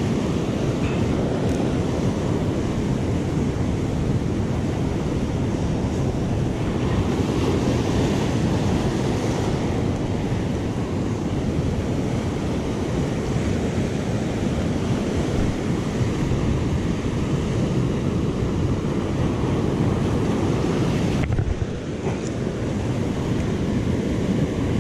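Ocean surf breaking and washing over a rocky shore in a steady rush, with wind rumbling on the microphone.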